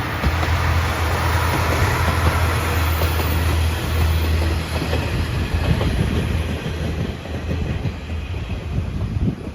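Electric train passing close by: a steady low hum, then wheels clacking rapidly over the rail joints in the second half, stopping just before the end.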